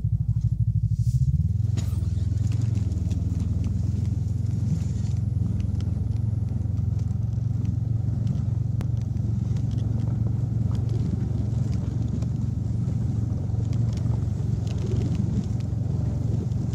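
Snowmobile engine running steadily as it tows a hay-loaded sleigh over snow; its engine note changes about a second and a half in as it gets under way.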